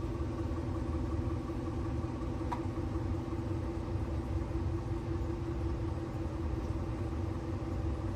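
Steady low mechanical hum with a constant tone and an underlying rumble, and one faint click about two and a half seconds in.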